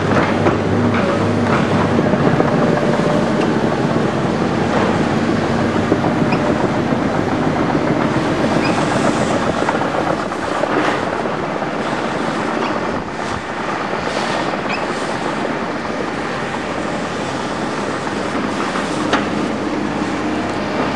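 Tracked hydraulic excavator travelling over a rough, stony cutting floor: its diesel engine running under a constant clatter of steel track links, with squeaks and knocks. The sound grows a little quieter after about ten seconds as the machine moves off.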